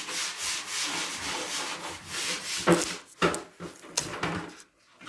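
Rhythmic rubbing and scraping, then a few sharp clicks and knocks, dropping almost to silence near the end.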